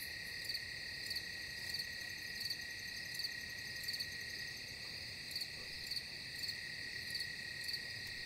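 Crickets sound effect: a steady high trill with a louder chirp repeating a little more often than once a second. It is the stock 'crickets' gag for a silence where nobody answers.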